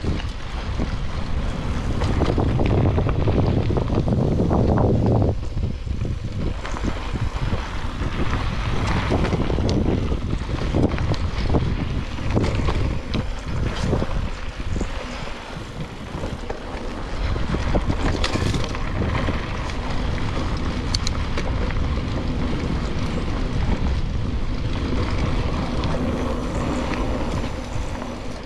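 Wind buffeting an action camera's microphone on a moving mountain bike, over a steady rumble of tyres rolling on dirt singletrack, with frequent short knocks and rattles as the bike goes over bumps.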